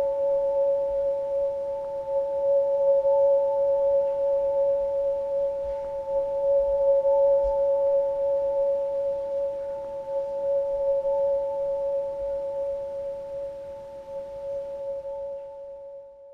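A steady pure tone of two notes held together, fading out near the end.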